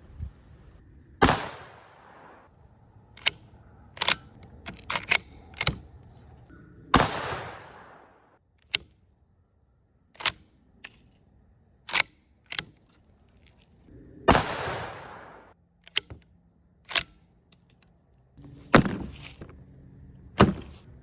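Four rifle shots from a Ruger Hawkeye bolt-action rifle, several seconds apart, each followed by a trailing echo. Short metallic clicks come between the shots as the bolt is worked.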